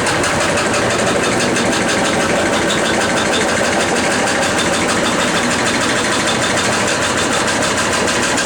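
Brand-new washing machine running with a loud, steady, rapid mechanical rattle and hum, an abnormal noise for a new machine just after being plugged in.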